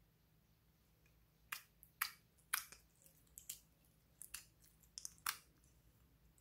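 Clear slime with plastic beads mixed in, pulled by fingers out of a plastic tray: a run of about eight sticky squelching pops over a few seconds, starting about a second and a half in.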